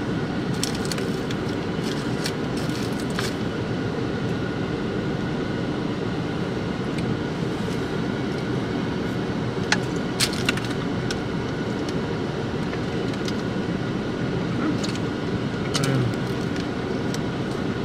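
Steady hum inside a parked car's cabin, with scattered light clicks and rustles of plastic forks, a sauce cup and a paper food wrapper as wings are eaten.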